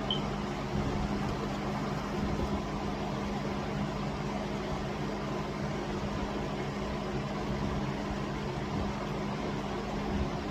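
Steady mechanical hum with a constant low tone and no change in pitch or level.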